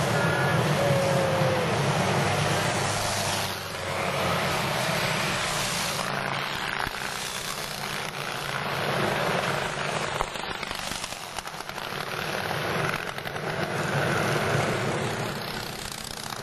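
Antique board-track racing motorcycles' engines running hard at speed on a dirt track, the noise swelling and fading several times as the bikes pass.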